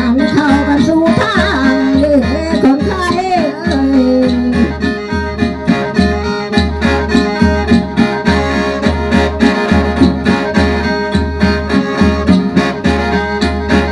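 Isan folk music for a ram klaemo spirit dance: a khaen, the bamboo free-reed mouth organ, plays a steady reedy drone and melody over a regular drum beat with small cymbal ticks. A voice sings a wavering melody for the first few seconds.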